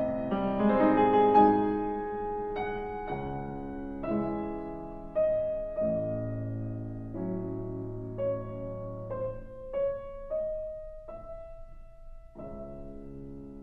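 Solo piano playing a slow classical piece: a melody of ringing single notes over sustained chords, thinning to a few lone notes before a fuller phrase begins near the end.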